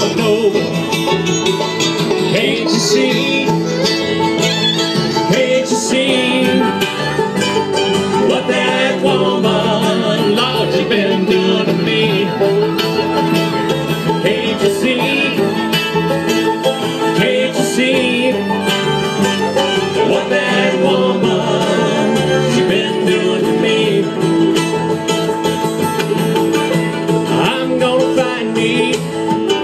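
Live bluegrass band playing: fiddle, banjo, mandolin, acoustic guitar and upright bass together at a steady, driving tempo.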